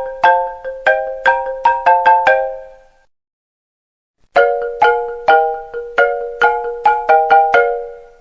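iPhone ringtone melody in marimba-like tones: a phrase of about a dozen quick notes, a pause of about a second and a half, then another phrase of the same kind.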